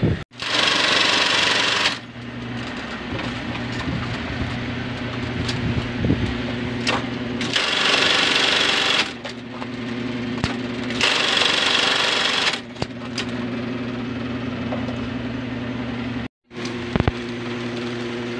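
Industrial bartack sewing machine sewing three short bartack cycles, each a loud rattling run of about one and a half seconds, over the steady hum of its motor running between cycles.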